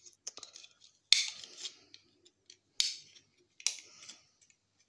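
Hand cutters snipping through electronic scrap, three sharp cuts about a second or more apart with a few small clicks before them.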